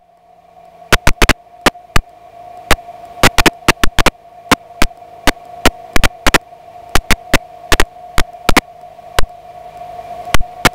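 Radio/intercom headset feed in an open-cockpit biplane crackling with static: sharp irregular clicks, a few a second, over a steady hum tone, with a hiss that slowly grows louder.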